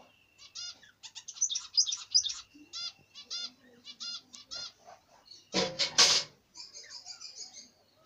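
A flock of budgerigars chirping and chattering in quick runs of short, repeated notes. About five and a half seconds in there is a loud rustling burst lasting under a second.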